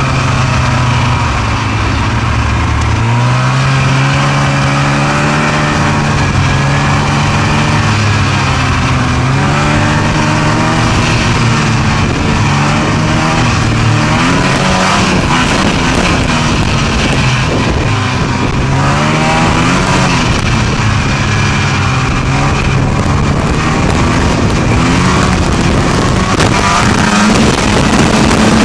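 Snowmobile engine running loud and continuous under the rider, its pitch rising and falling again and again as the machine speeds up and slows.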